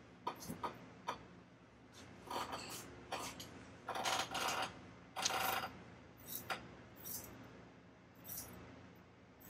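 Small objects and materials being handled on a work table: a string of irregular clicks, light clatter and short rustles, the longest about four and five seconds in.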